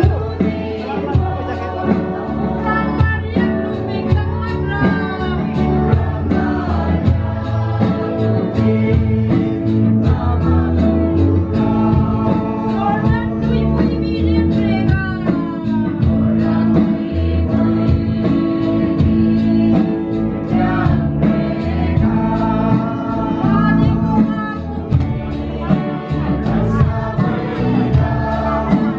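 A live band playing a song with singing, over guitar and drums keeping a steady beat.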